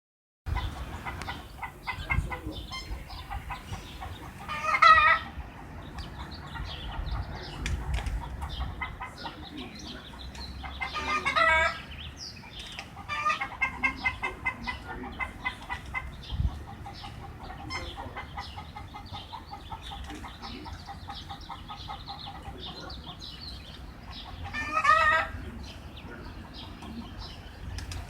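Chickens clucking, with a rooster crowing three times: about five seconds in, about eleven seconds in, and near the end.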